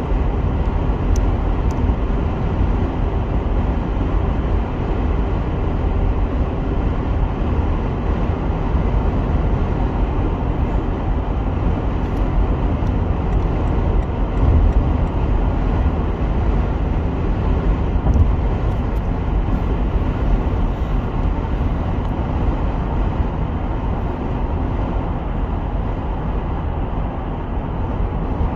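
Steady road noise of a car driving at speed: a continuous deep rumble of tyres and engine.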